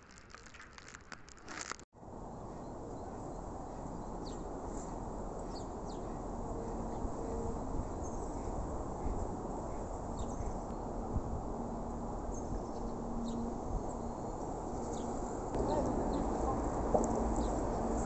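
Outdoor ambience by a river: a steady rushing noise with short bird chirps scattered over it. It opens with a couple of seconds of dense crackling that cuts off abruptly, and the rushing grows louder about three-quarters of the way through.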